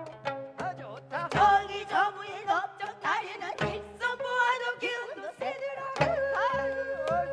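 Gayageum (Korean plucked zithers) playing, with plucked notes bent and shaken into vibrato, over the strokes of a janggu hourglass drum.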